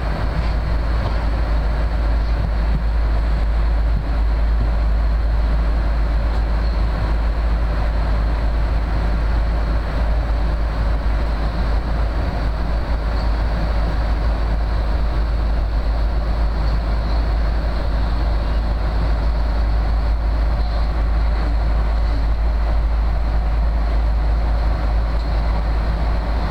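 Steady cabin noise of a jet airliner in flight: engine and airflow noise, a deep rumble under an even hiss, with no breaks or changes.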